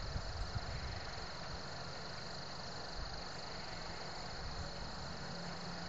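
Steady high-pitched insect chorus over a low rumble.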